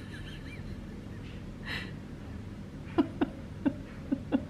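A person's soft, breathy chuckles: a breath, then about five short falling laughs in the last second and a half.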